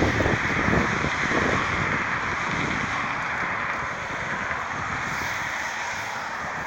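A steady rushing hiss of outdoor noise, with wind buffeting the microphone in the first second or so.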